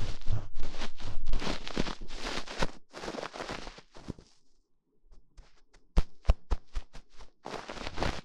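Close-miked ASMR ear-massage sounds: bursts of hands rubbing over a microphone's ears. After a short lull about four seconds in comes a quick run of sharp taps, then more rubbing near the end.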